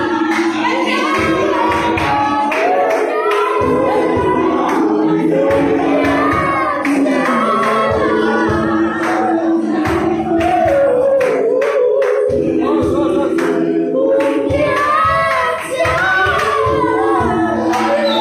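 Mixed choir of young men and women singing a cappella in several parts, with a steady beat of hand claps.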